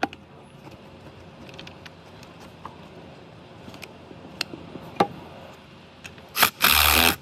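Metal battery terminal clamp being fitted onto its post, with a few sharp clicks and taps, then a socket wrench tightening the clamp nut: a loud half-second burst of rapid ratcheting near the end. A steady faint hum runs underneath.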